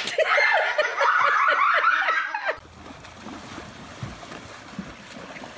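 A person laughing hard in quick repeated bursts for about two and a half seconds, then a cut to a quieter splashing of water as horses wade through a shallow river.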